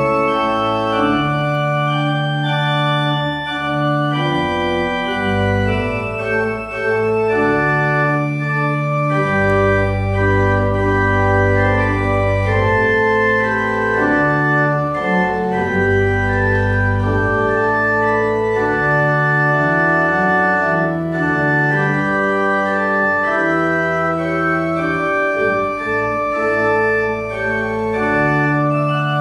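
Church organ playing music: held chords over a bass line, the notes changing every second or two.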